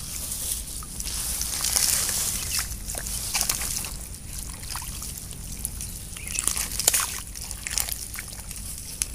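Hands digging and squelching in wet mud and shallow water, with irregular wet smacks and splashes over the steady trickle of running water in a small channel.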